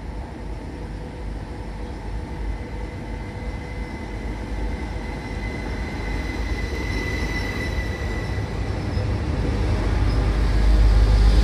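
Stadler FLIRT multiple unit pulling into a platform, its rumble growing steadily louder as it comes alongside, with a thin high whine partway through.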